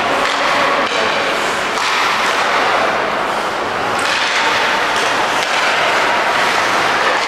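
Hockey arena ambience: a steady din of crowd noise in a large rink, with a few light knocks from play on the ice.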